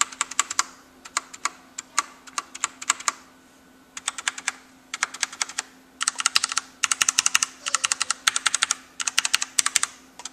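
Leopold mechanical keyboard with linear Cherry MX Red switches being typed on in quick bursts of clacking keystrokes, with short pauses between bursts; the keys, shift included, bottom out. A faint steady hum runs underneath.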